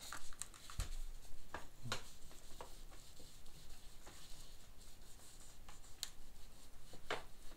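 Paper towel rubbing and scrubbing over the painted metal casing of a Necchi Supernova sewing machine to lift yellow staining: a faint, scratchy wiping with irregular small clicks and taps.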